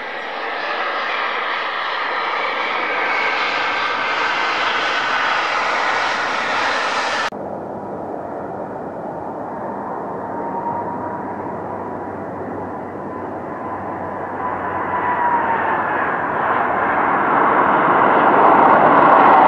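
Jet airliner engines during two landings. First a Boeing 737 touches down with a steady whine. At about seven seconds the sound cuts abruptly to an Airbus A330 coming in to land, its engine noise growing steadily louder toward the end as it reaches the runway.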